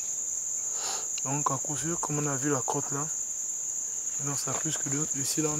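Steady high-pitched drone of rainforest insects, with a voice speaking briefly twice over it.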